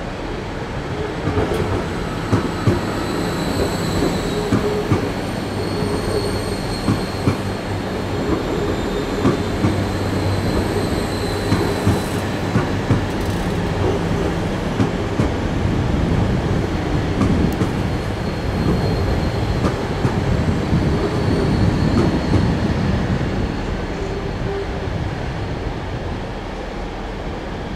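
Train rolling over station tracks, its wheels clicking over rail joints and points, with a faint high squeal from the wheels now and then.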